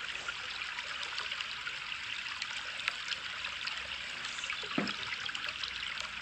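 Steady trickling, flowing water, like a small stream, with a continuous light bubbling hiss.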